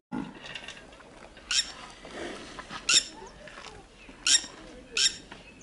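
Red-wattled lapwing giving four short, sharp, high-pitched calls, spaced about a second apart.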